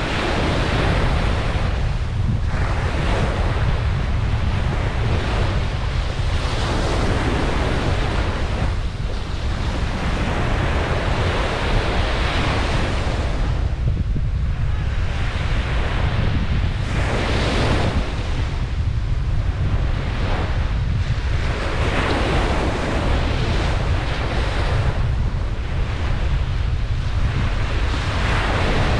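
Ocean waves breaking and washing up on a beach, swelling and fading every few seconds, with a constant low rumble of wind on the microphone underneath.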